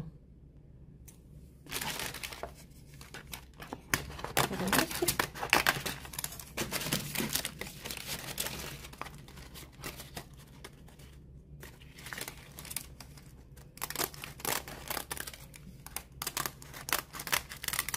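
Kitchen scissors cutting dry, brittle rice paper sheets into small pieces, with the sheets crackling and rustling as they are cut and handled. The cutting starts about two seconds in and goes on in irregular snips and crinkles.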